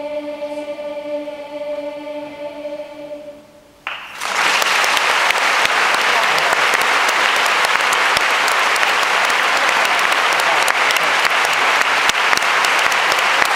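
A children's choir holds a final chord that fades away; about four seconds in, a large audience breaks into loud, sustained applause.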